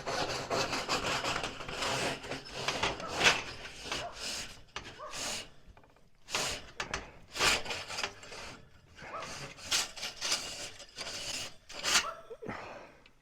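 Chimney brush scrubbing up and down inside the chimney flue in repeated rasping strokes, about one a second, scouring out built-up creosote.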